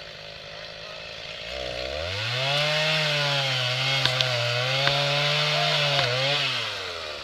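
Two-stroke chainsaw revved up from idle about a second and a half in. It runs at high speed with a wavering pitch as it saws into the tree trunk, then drops back toward idle near the end.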